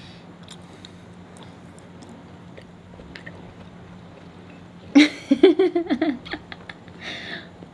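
Quiet chewing and faint spoon clicks as cheesecake is eaten, then about five seconds in a short, choppy burst of vocal reaction and laughter.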